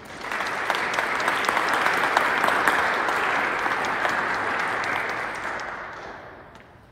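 Congregation applauding in a large church: clapping that starts at once, holds steady, then fades away near the end.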